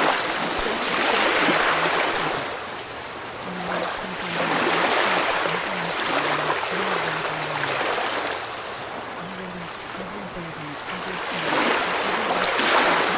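Ocean waves washing ashore, the surf swelling and ebbing in slow surges every few seconds.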